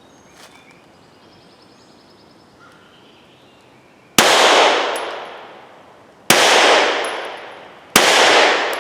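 Three pistol shots from a Glock 19 firing subsonic 9mm handloads, about two seconds apart after a few quiet seconds, each with a long echo fading away. The pistol cycles reliably between shots with these loads.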